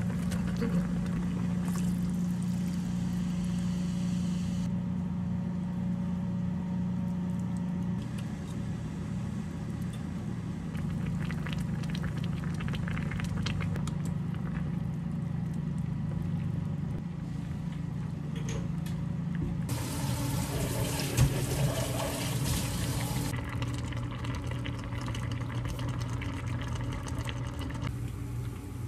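Saury kimchi stew boiling and bubbling in a pan on a cooktop, over a steady low hum. A louder rushing hiss comes in for about three seconds past the middle.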